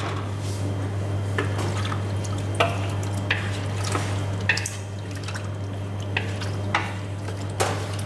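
A wooden spatula stirring chicken in coconut-milk curry in a steel wok, with short, irregular scrapes and knocks against the pan and liquid sloshing, about every half second to second, over a steady low hum.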